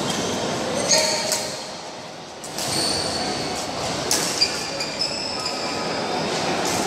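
Badminton play in an indoor hall: rackets strike the shuttlecock several times with sharp hits, court shoes squeak on the floor, and the hall's steady murmur continues underneath.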